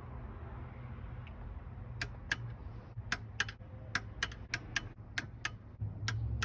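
A run of sharp, irregular clicks, about three a second, starting about two seconds in and dying out near the end, over a low steady hum.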